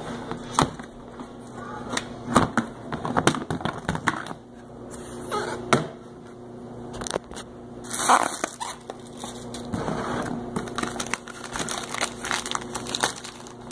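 Plastic ammo can being unlatched and its lid opened, with repeated sharp clicks and knocks of hard plastic, then the cellophane wrapping of the packed items inside crinkling as they are handled.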